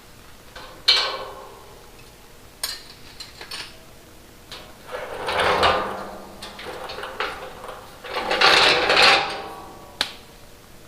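Sheet-metal parts of a welding cart being handled and fitted together: a sharp metal clank that rings about a second in, a few light clicks, then two longer stretches of rattling, ringing metal in the middle and near the end.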